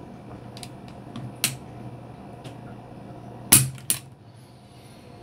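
Beretta 92FS dry-fired as its trigger is drawn with a trigger-pull gauge: a few faint clicks, then a sharp metallic click about three and a half seconds in as the hammer falls, followed by a second quieter click.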